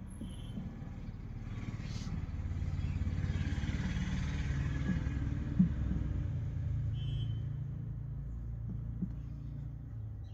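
A road vehicle's engine rumble swells and fades as it passes, with a few short high chirps.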